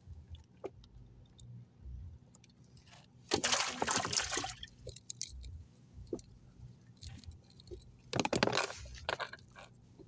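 Water sloshing and splashing against a small wooden boat's hull in two bursts, about three seconds in and again near eight seconds, with small clicks from fishing line being handled.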